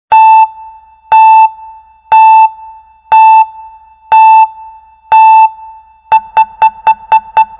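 Electronic beep sound effect: a single steady tone beeping six times about a second apart, then quickening to about four beeps a second near the end.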